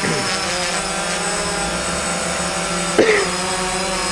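DJI Phantom quadcopter hovering, its four electric motors and propellers giving a steady multi-tone whine. About three seconds in, a short squeal drops quickly in pitch over it.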